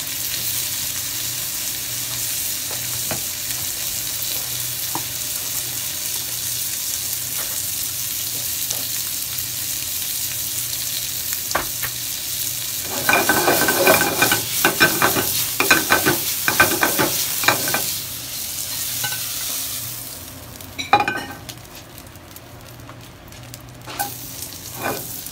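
Shrimp sizzling in hot oil in a frying pan, a steady high hiss, with a run of quick rattling knocks for several seconds in the middle. Near the end the sizzle drops to a quieter crackle as butter melts in the pan, with a few clicks.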